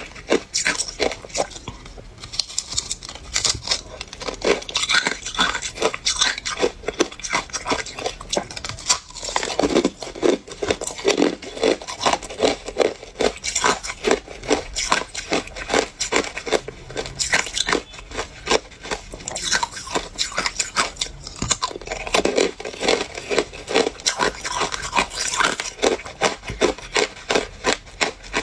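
Hard ice cubes being bitten and chewed close to the microphone: a dense, irregular run of sharp crunches and cracks.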